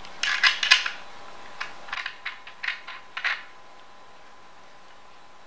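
Light metallic clicks and clinks from small screws and a nut being handled and tightened while a wooden leg is fixed to an aari embroidery frame. They come in a quick cluster at first, then a scattered run of clicks over the next two seconds.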